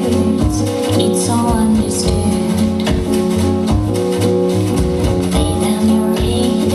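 Music with a steady bass beat, accompanying a stage dance.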